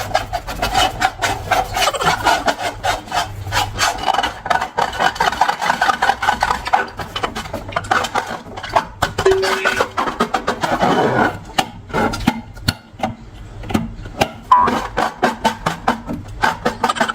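Slime and balloons being handled, with a dense run of rapid crackling clicks and rubbing. One short squeaky tone sounds about halfway through, and background music runs underneath.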